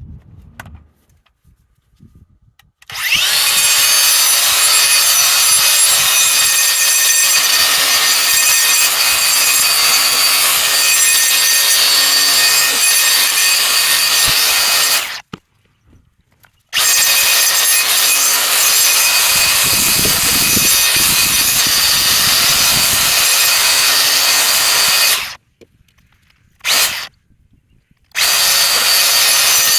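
Electric grinder with a wire brush wheel scouring rust off the steel driveline parts, so that they will slide back together. It runs steadily with a high motor whine in three long runs, stopping about a quarter of the way in and again near the end, with one brief burst between.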